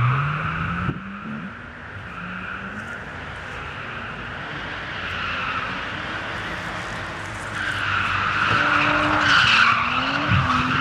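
Drift car sliding with its tyres squealing and its engine revving up and down through the slide. The tyre squeal grows louder about eight seconds in.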